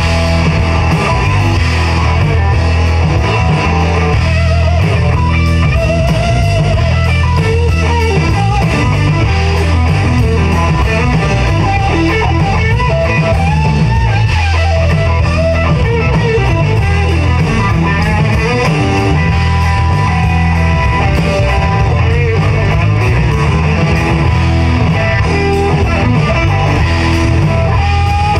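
Live rock band playing an instrumental passage: an electric guitar plays a lead line with bending notes over a drum kit.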